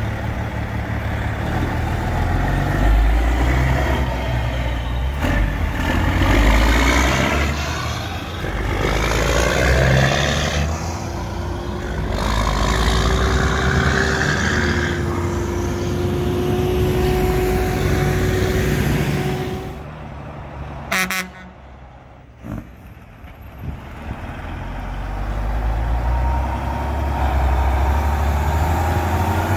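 Heavy diesel trucks driving past on a busy road, with engine rumble and tyre noise swelling and fading as each one passes. A big tow truck pulls away, there is a short quieter gap, and near the end a Kenworth T800 crane truck approaches and passes, its engine growing louder.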